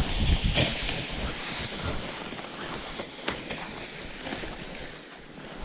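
Crunching footsteps in deep snow and a plastic sled sliding on a rope, with wind rumbling on the microphone. The thuds are heaviest in the first second, and the sound grows fainter toward the end.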